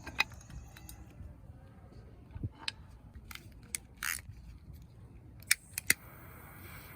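A scattered run of sharp clicks and knocks, about seven over several seconds, like small hard objects being handled and set down.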